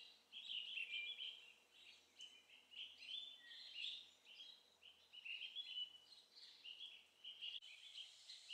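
Faint, continuous twittering of small songbirds, many short high chirps overlapping.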